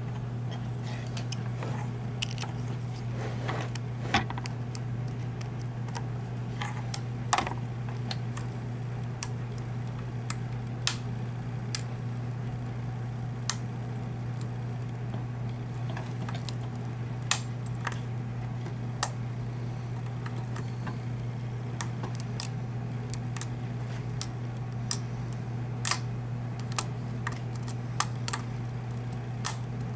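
A lock pick working inside a Falcon mortise lock cylinder: light, sharp metallic clicks at an irregular pace, roughly one a second, as the pick lifts the pins. A steady low hum runs underneath.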